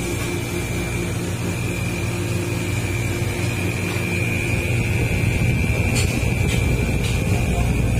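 Upright freezer's condensing unit running: the compressor hums and the condenser fan motor, fitted with new bearings, turns smoothly. The remaining noise is the compressor, and the fan motor now runs well. A steady hum with a thin high whine grows gradually louder, with a few light clicks near the end.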